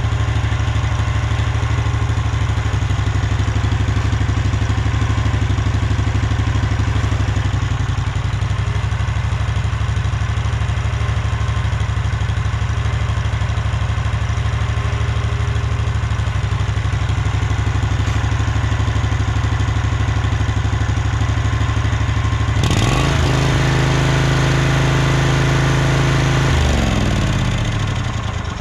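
Husqvarna Rider 1200 riding mower's engine running steadily at idle. About 23 seconds in, the pitch steps up for a few seconds as it is revved, then falls away near the end as the engine winds down.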